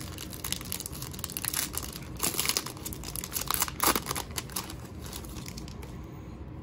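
Foil-lined wrapper of a Topps baseball card pack crinkling and tearing as it is peeled open by hand, with the loudest crackles about two and four seconds in; it goes quieter near the end.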